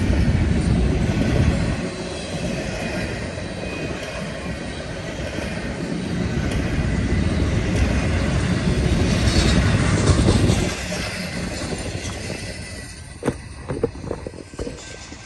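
Intermodal freight train of well cars passing close by, its wheels rumbling and clacking over the rails. The rumble drops away about eleven seconds in as the last cars go by, followed by a few sharp knocks.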